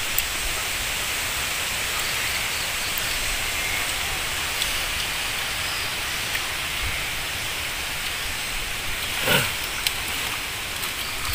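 A steady, even hiss of outdoor background noise, with a short rustle about nine seconds in.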